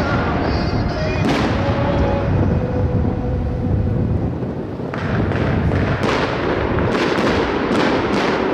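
Fireworks display: aerial shells and rising rockets going off in a continuous barrage of bangs and crackle. A sharp new burst comes about five seconds in, followed by a quick run of bangs.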